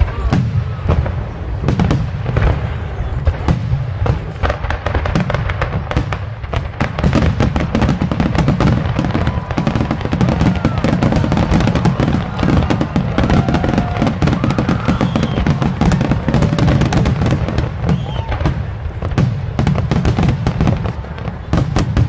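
Aerial fireworks display: a rapid, near-continuous barrage of shell bursts, bangs and crackle with a heavy rumble underneath. It grows denser about seven seconds in.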